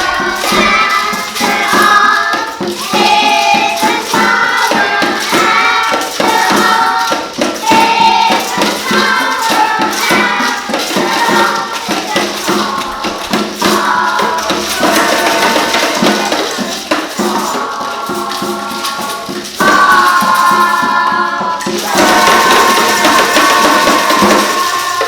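A group of children singing a song, with shaken rattling percussion keeping the beat; the last notes are held longer before the song ends.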